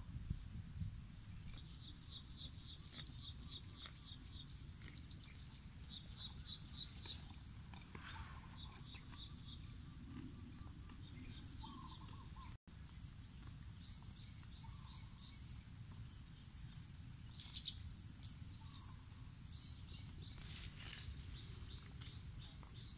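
Quiet outdoor ambience: small birds chirping in short rapid trills and separate chirps, over a steady high insect drone and a faint low rumble.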